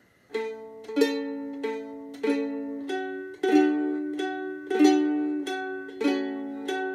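Ukulele played in a steady pick-then-strum pattern, a single picked string followed by a strummed chord, about every 0.6 s, moving through the C, F and A minor chords.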